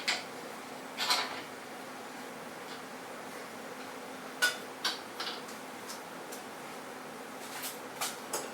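Scattered knocks and clicks from handling a plywood board and the crosscut jig while setting up the next cut, with a cluster of sharper clacks about four and a half seconds in. No saw is running.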